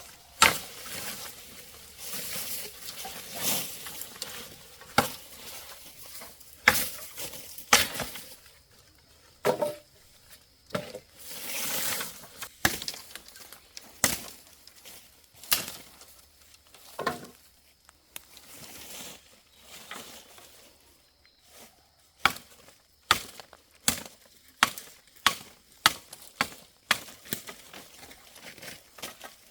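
Firewood being chopped by hand: repeated sharp blows, irregular at first with rustling between them, then settling into about one blow a second.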